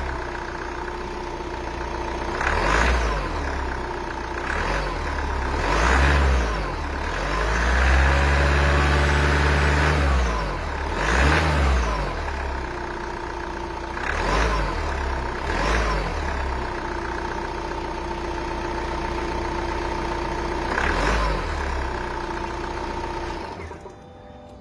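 2.0 dCi diesel engine running cold, blipped about seven times and once held up for a couple of seconds, with a steady whine over the idle. The engine sound cuts off shortly before the end.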